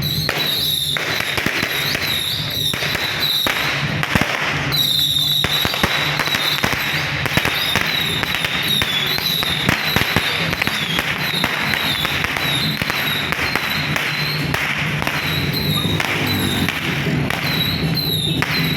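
A long string of firecrackers crackling without a break, with a wavering high-pitched tone sounding above the crackle.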